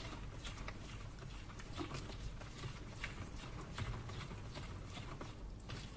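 Faint, irregular light clicks and taps of things being handled, over a steady low hum.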